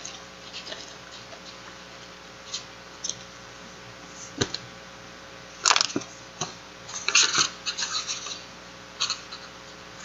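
Pages of a new paperback book being handled and turned by hand: short scratchy paper rustles, scattered at first, the loudest about halfway through and a quick run of them a little later.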